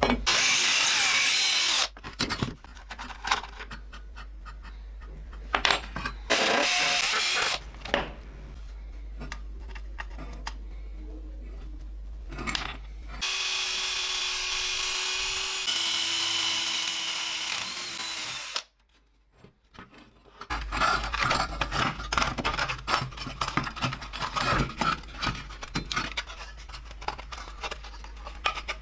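Workshop tool work on a pressed-steel toy jeep in short edited clips: power-tool passages that start and stop, one with a steady motor tone that steps lower partway. Between them come clicks and light metal scraping, and near the end a long run of rapid scratching and clicking.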